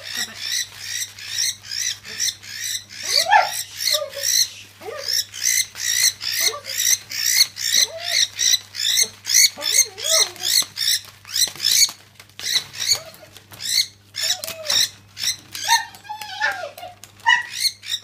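A cockatiel's wings flapping and its body thrashing against the newspaper floor of its cage during a seizure-like fit from lead poisoning: rapid rustling strokes, about three a second, becoming sparser and uneven after about twelve seconds.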